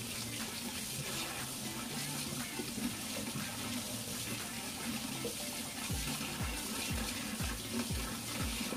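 Tap water running steadily into a stainless steel sink as green onions are rinsed by hand under the stream. Background music plays underneath, its steady beat coming in about six seconds in.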